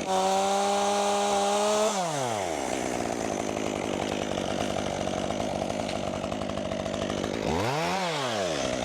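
Chainsaw engine held at high revs, then dropping back to idle about two seconds in, and blipped once briefly near the end.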